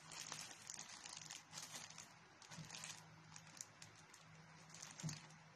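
Plastic courier bag crinkling as it is handled, in irregular rustles that are busiest in the first three seconds, with one sharper crinkle about five seconds in.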